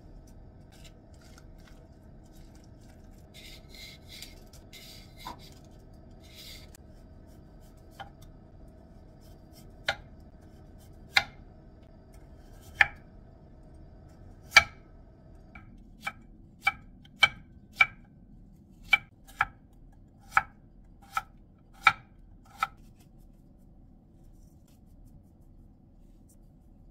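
Kitchen knife cutting through Korean radish onto a wooden cutting board: a few sharp chops well apart, then a quicker run of about a dozen chops roughly two a second, which stops a few seconds before the end.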